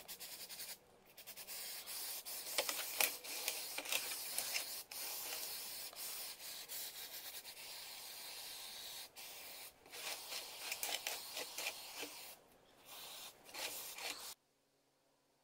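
Aerosol spray can hissing in long bursts with a few brief pauses, cutting off suddenly near the end.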